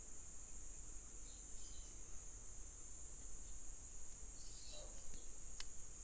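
Quiet background with a steady high-pitched hiss and a faint low hum. A soft click comes near the end as the multitool is handled.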